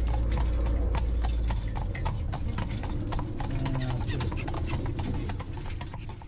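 Hooves of two carriage horses clip-clopping on the road as they pull a horse-drawn carriage, several hoofbeats a second over a low rumble. The sound fades out near the end.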